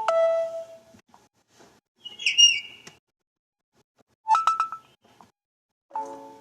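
Samsung Galaxy J2 notification tones (Viper OS custom ROM) played one after another, each short and different. A pitched chime comes first, then a high warbling chirp about two seconds in, a quick run of plucked notes around four and a half seconds, and another chime near the end.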